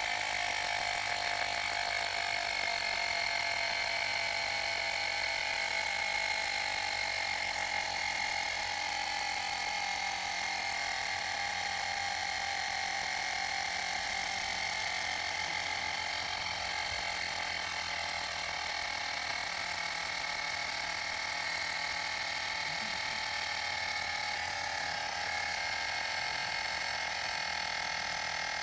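Small portable tyre compressor from a Stop & Go tubeless puncture repair kit running steadily, powered from a motorcycle's battery, pumping up a repaired tubeless motorcycle tyre.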